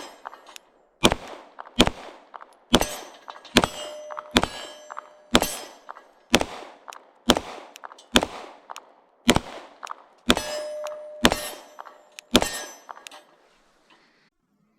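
Glock 19 Pro 9mm pistol fired at a steady pace, about one shot a second, some thirteen shots in all. Each shot has a sharp metallic clang and a ringing tail, and the ringing holds on for a second or so after a few of them.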